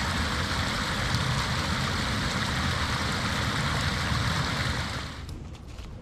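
Small stream of water running steadily through grass and clover at a woodland water source, cutting off abruptly about five seconds in.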